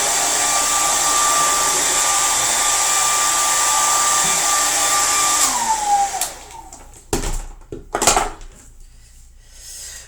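Handheld hair dryer blowing steadily with a high whine, switched off about five and a half seconds in, its whine falling as the motor spins down. Two short bumps follow, the second the loudest sound in the stretch.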